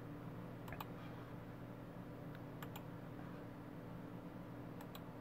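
Three pairs of faint clicks from a computer mouse and keyboard, over a steady low hum.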